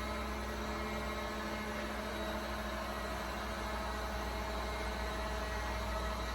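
Robot vacuum cleaner running: a steady motor whir and hum.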